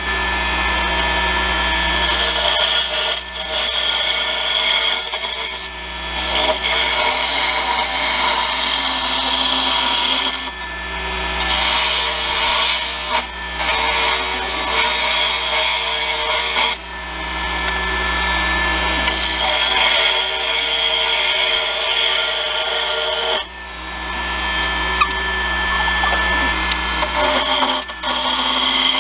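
A carbide turning tool cutting a long aromatic cedar spindle spinning on a JET variable-speed wood lathe: a dense scraping hiss of shavings that breaks off briefly several times as the tool comes off the wood, then resumes, over the steady hum of the lathe motor.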